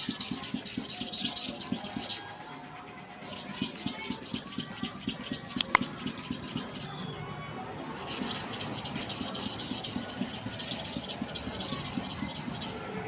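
Steel clipper blade being rubbed rapidly back and forth on a super hard manual sharpening stone, a fast rhythmic scraping in three runs with short pauses after about two and seven seconds. The blade is being ground flat again because its inner surface has lost its flatness.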